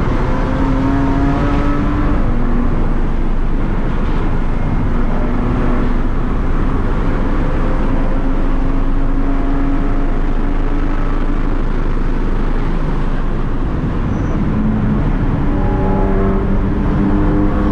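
BMW M2 CS Racing's twin-turbo inline-six heard loud from inside the cabin under hard track driving. The engine note climbs and drops several times over a heavy haze of road and wind noise.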